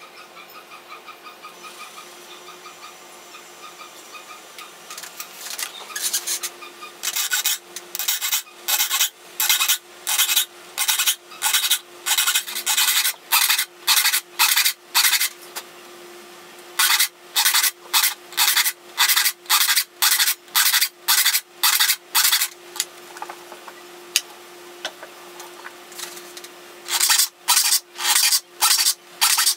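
A hand saw file sharpening the teeth of a 14-tooth-per-inch Henry Disston & Sons No. 7 back saw held in a wooden saw vise. Faint rubbing gives way to regular rasping file strokes, about two a second, in three runs with short pauses between them.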